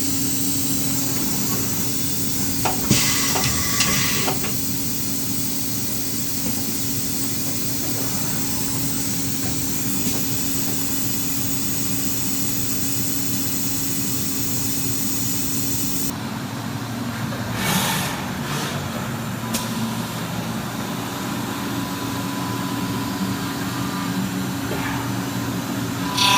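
Vertical machining center running under power with a steady mechanical hum and hiss. There is a brief cluster of knocks and clunks about 3 seconds in and another near the 18-second mark. The steady tone and hiss change about two-thirds of the way through.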